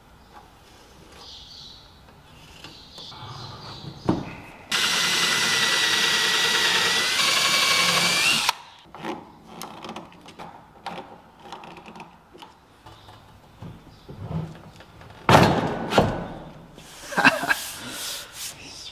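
DeWalt cordless drill running for several seconds, its whine stepping up a little in pitch just before it stops, followed by scattered clicks and knocks of tools and parts being handled.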